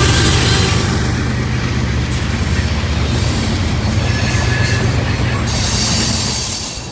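A train going by close at hand: a steady low rumble, with steel wheels rolling on the rails and a thin, high wheel squeal over it. It eases off a little near the end.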